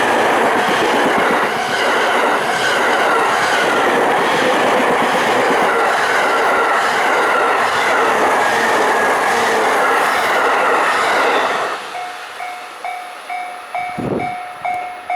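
Freight train wagons rolling over the Takasaki Line's level crossing, a loud continuous clatter of wheels on rail, until the last wagon clears about twelve seconds in. The level crossing's electronic warning bell is then heard alone, dinging evenly about twice a second, with one dull thump near the end.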